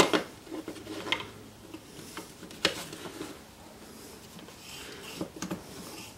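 Wooden pieces being set down and fitted together by hand on a tabletop: a few separate sharp knocks and light scrapes of wood on wood.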